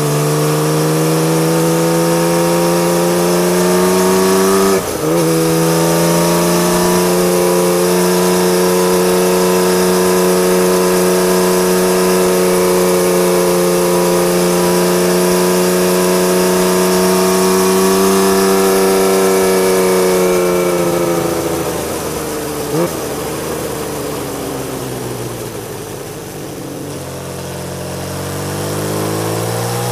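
Honda CBX1000's air-cooled inline-six running loud through an aftermarket Marving exhaust under way. The revs climb, break briefly about five seconds in for a gear change, then hold steady. Around twenty seconds in the revs fall off, with a short blip a few seconds later, and they climb again near the end.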